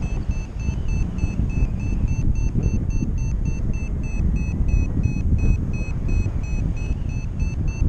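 Wind buffeting the microphone heavily in flight. Over it, a paragliding variometer beeps steadily about three times a second, its climb tone, which signals that the glider is rising.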